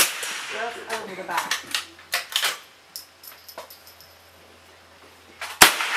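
Two .22 rimfire rifle shots from the firing line, one right at the start and another about five and a half seconds in, each a single sharp crack. A few short sharp clicks fall between them, with faint voices.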